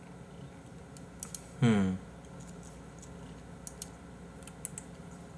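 A few scattered clicks from a computer mouse and keyboard, with one short hummed "hm" from a man about a second and a half in.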